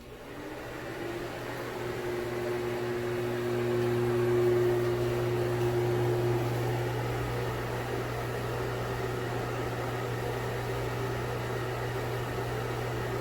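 Broan Heat-a-vent bathroom exhaust fan, a shaded-pole motor driving an impeller, starting up and getting louder over the first few seconds, then running steadily with a buzzy hum under the rush of air.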